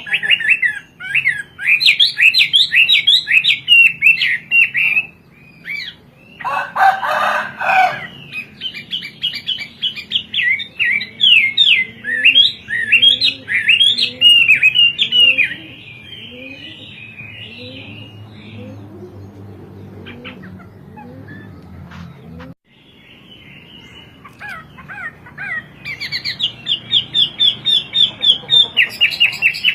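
Chinese hwamei singing in fast, varied runs of loud sweeping whistled notes, broken by short pauses and a quieter stretch near the middle. A brief harsher burst comes about six to eight seconds in, and a faint low rising call repeats about once a second in the background through the middle.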